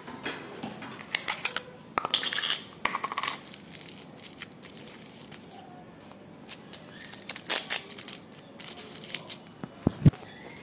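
Kitchen things being handled on a counter: scattered clinks, knocks and packaging rustles, with two loud thumps close together near the end.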